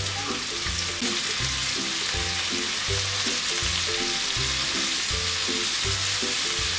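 Skewered beef kababs sizzling steadily as they fry in hot mustard oil in a pan. A background music track with a repeating bass line plays along.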